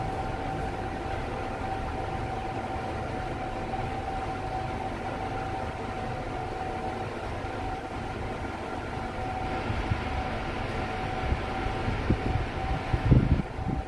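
Passenger lift car travelling upward: a steady running hum with one constant whine and a low rumble. A rushing hiss grows louder in the second half, and a few low thumps come near the end.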